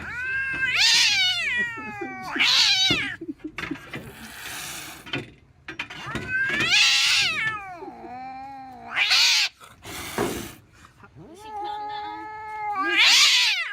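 Domestic cat yowling angrily: about six drawn-out, wavering meows that rise and fall in pitch, one of them lower and growly, with two short hisses between them.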